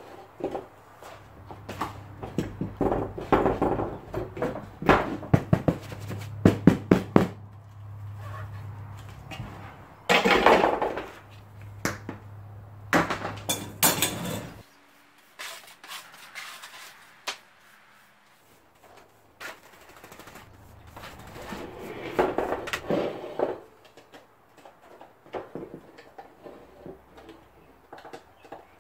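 Handling noise from an old lawn tractor seat being stripped: stiff, brittle vinyl and plastic trim crackling as they are pulled away, with repeated knocks and clunks of the steel seat pan and pieces on the bench. A low steady hum underneath cuts off about halfway through.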